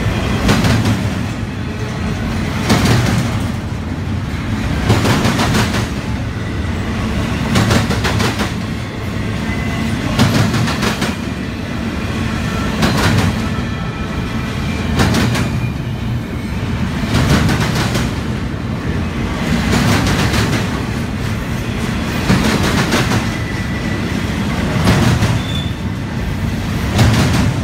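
Double-stack intermodal well cars of a freight train rolling past over a steady low rumble, their wheels clacking over rail joints in groups about every two seconds.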